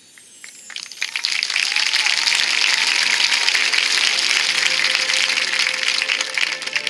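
Audience applause, swelling in about a second in and holding loud, with a faint held tone underneath.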